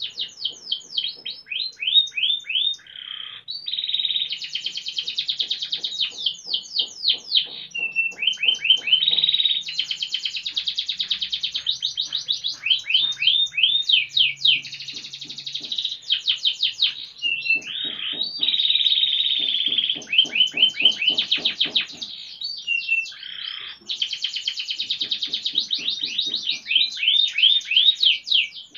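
Domestic canary singing one long, unbroken song: fast runs of repeated sweeping chirps alternating with sustained rolling trills.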